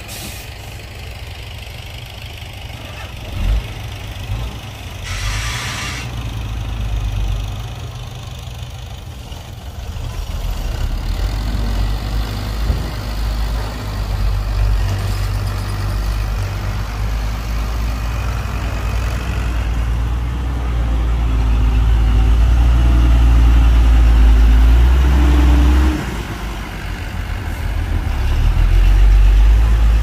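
Heavy earthmoving machinery's diesel engine running. It grows louder through the second half, drops sharply about 26 seconds in and then builds again. A short hiss comes about five seconds in.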